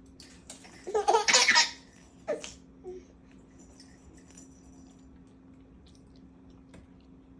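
A five-month-old baby laughing: a loud burst of belly laughter about a second in, a shorter laugh a second later, then quiet.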